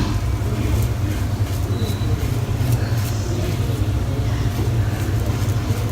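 A steady low hum underlies short, light scraping strokes of a Shavette razor blade across lathered stubble.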